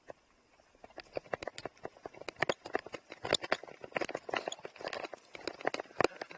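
Mountain bike clattering over a rough dirt trail: a quick, irregular run of knocks and rattles from the bike as it is ridden downhill, nearly quiet for about the first second.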